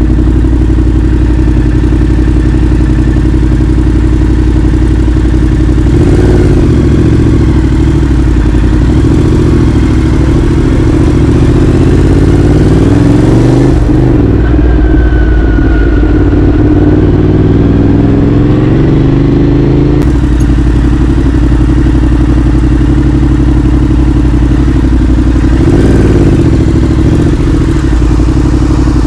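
Yamaha R7 with an Akrapovic exhaust running under way at a fairly steady speed, its engine note shifting and bending about six, fourteen and twenty-six seconds in.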